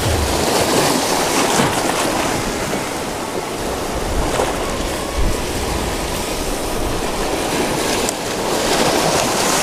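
Small waves washing and splashing against the rocks at the shoreline, with a strong wind buffeting the microphone in irregular low rumbles.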